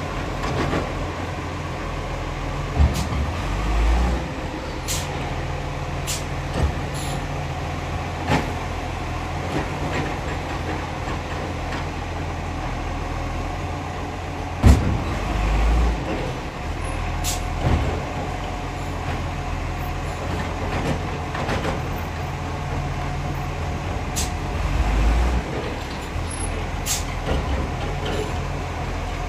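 Garbage truck engine running steadily while it empties a row of wheelie bins. The engine note swells three times, with sharp knocks and bangs of bins and lids; the loudest bang comes about halfway through.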